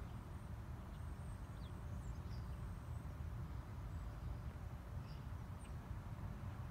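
Faint, brief bird chirps now and then over a steady low rumble of outdoor background noise.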